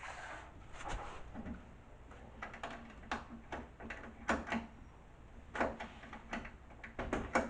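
A run of light, irregular clicks and knocks from car body parts being handled and fitted.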